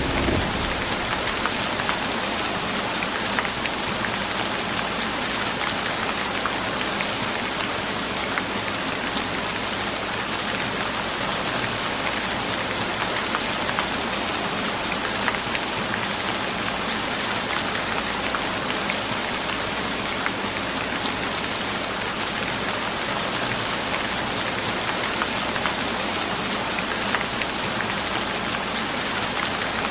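Steady rain falling: an even hiss dotted with many fine drop ticks, holding level throughout.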